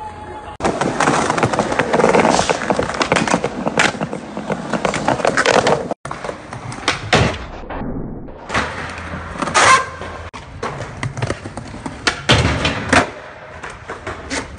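Skateboard wheels rolling on pavement, with many sharp clacks of the board popping, flipping and landing. The sound changes abruptly about six and ten seconds in.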